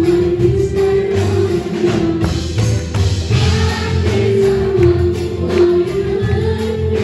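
Live band music: young voices singing a melody over clarinet, an orchestra and percussion, with a pulsing bass line and steady beat.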